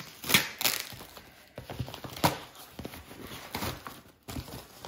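Rustling packaging and a rolled diamond-painting canvas being handled, in uneven scrapes with a few sharp knocks. The loudest come about a third of a second in and just after two seconds.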